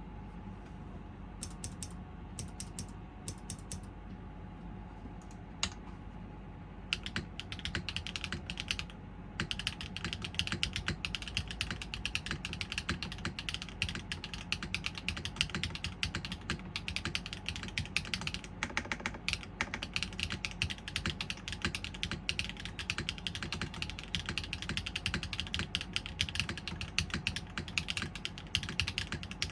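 Mechanical keyboard typing on a TGR x GSK 910 PC with factory-lubed HMX Yogurt S switches, an aluminum top-mount plate, no foam dampening and GMK keycaps. A few scattered keystrokes at first, then steady, fast typing from about seven seconds in.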